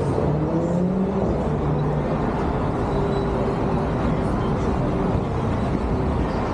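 Steady low rumble of road traffic, with cars running by.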